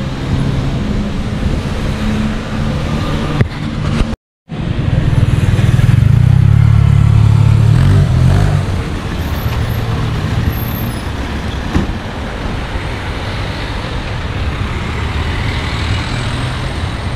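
Street traffic: cars driving past on a city road. The sound cuts out for a moment about four seconds in, then a passing vehicle's low engine rumble is loudest for about three seconds before easing into steady traffic noise.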